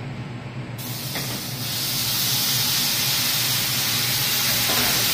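A ladleful of liquid from a stockpot hits a hot frying pan of fried onions and ground spices: a sudden loud hiss about a second in that swells and then keeps sizzling steadily.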